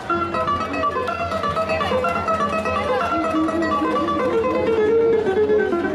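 Live plucked-string music on a gourd-bodied African string instrument: a quick run of bright plucked notes, the melody stepping down through the middle of the passage.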